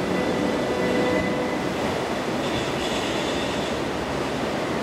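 Steady rumbling noise from a museum exhibit's soundtrack over loudspeakers, even in level and with no distinct impacts.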